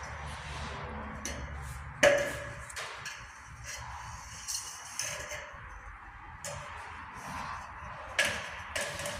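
Thin galvanised steel drywall profile clanking and ringing as it is handled and knocked about; the loudest clank comes about two seconds in, another near the end, with lighter knocks between.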